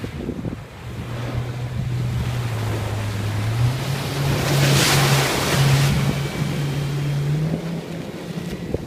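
Yamaha F90 four-stroke outboard on a rigid inflatable boat running at speed in a close pass, with a steady engine drone whose pitch steps up twice. The rush of hull spray and wake builds to a peak about halfway through, then fades as the boat runs away.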